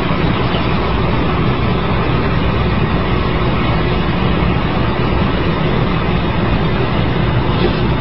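Toilet flushing: a steady, loud rush of running water.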